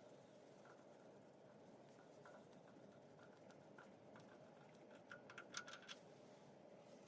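Near silence: faint room tone with a quick run of light clicks about five to six seconds in.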